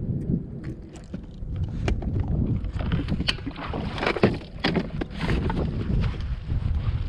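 Boston Whaler motorboat under way on open water, with a steady low rumble, wind buffeting the microphone, and repeated sharp knocks, the loudest about four seconds in.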